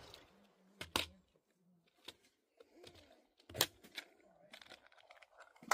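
Scattered sharp clicks and small metallic rattles of a Walther P22Q .22 pistol and its cartridges being handled, the loudest about a second in and again about three and a half seconds in.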